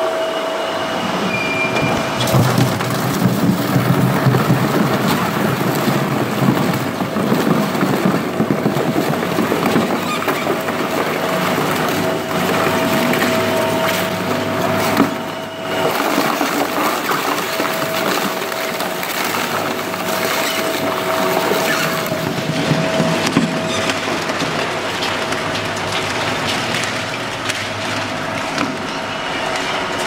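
Twin-shaft scrap shredder tearing up a refrigerator: continuous grinding and crunching of sheet metal and foam insulation between the cutter discs. A steady whine runs underneath and stops about two-thirds of the way through, and there is a brief lull about halfway.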